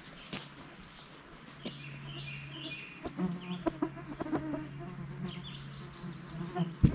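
Birds calling and clucking over a steady low hum, with the rustle and crackle of a cloth sheet being spread on the grass.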